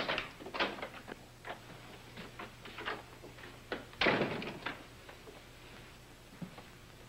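A wooden panelled door being opened and walked through, with scattered light clicks and knocks. About four seconds in, the door shuts with a thud, the loudest sound.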